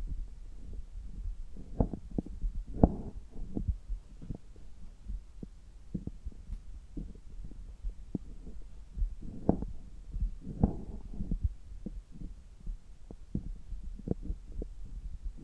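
Belly sounds heard through a stethoscope pressed to the abdomen during a stomach massage: irregular low thumps and rubbing with gurgles of the intestines. The louder gurgles come about three seconds in and again around ten seconds in.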